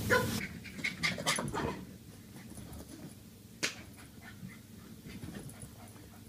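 Small dog, a Yorkshire terrier, whimpering and panting several times in the first two seconds, then quieter, with one sharp tap about three and a half seconds in.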